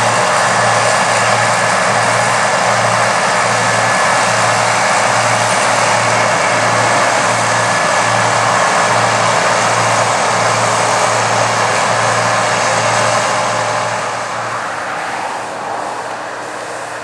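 Massey Ferguson 8570 combine running hard: a steady, loud mechanical hiss over a low throb that pulses a little under twice a second, getting quieter about fourteen seconds in.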